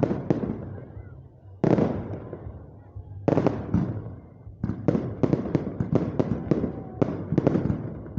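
Fireworks bursting, each bang followed by a rumbling echo: three single booms spaced about a second and a half apart, then a rapid string of bangs, several a second, from about halfway through.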